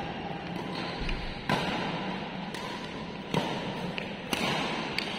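Badminton rackets smacking a shuttlecock during a doubles rally: three sharp hits and a few lighter ones, each ringing briefly in a reverberant hall.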